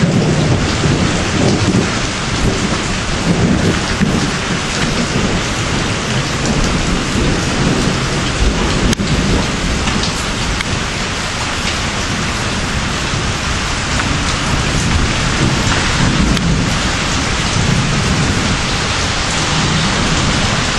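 Heavy rain pouring down in a dense, steady hiss, with a low rumble rising and falling beneath it.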